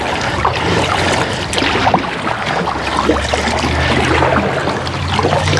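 Small fishing boat underway: water splashing and wind noise on the microphone, with a low steady motor hum starting about half a second in and growing stronger midway.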